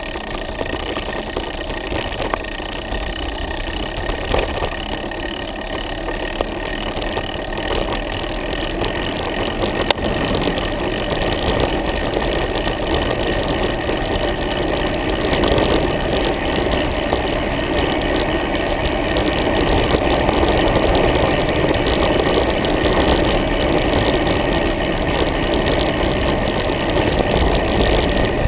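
Wind and road noise from riding a road bike, heard through a handlebar-mounted action camera, a steady rushing that grows gradually louder over the stretch.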